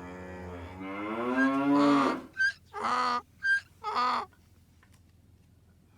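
Farm-animal sound effect: a cow mooing in one long call of about two seconds, followed by four short calls about half a second apart.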